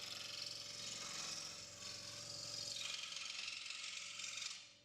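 Proxxon DS 460 scroll saw running with its induction motor and cutting: a steady rasping hiss of the blade over a low hum, fading out near the end.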